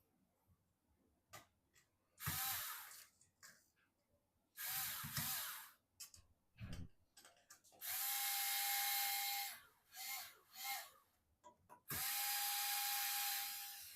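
Small electric screwdriver or drill running in four short bursts of one to two seconds each, with light clicks between them. The last two bursts are the longest and hold a steady whine.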